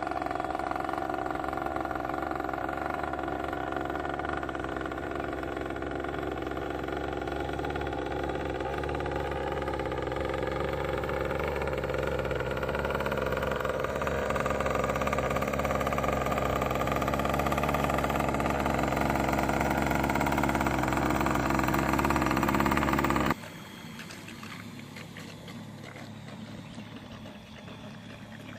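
Small two-stroke gas engine of an RC boat, an Arrow Shark XP254M V2, running steadily at part throttle during break-in, its pitch creeping slowly upward. It cuts off suddenly about 23 seconds in, leaving a much fainter noise.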